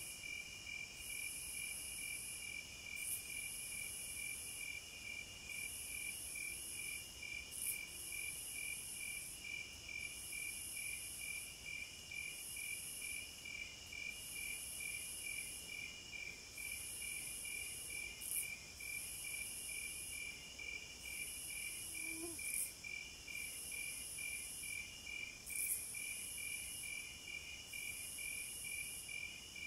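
Night chorus of crickets and bush crickets. One insect repeats a high, buzzing trill in bursts of about a second with short gaps, while another pulses steadily at a lower pitch, about four to five times a second.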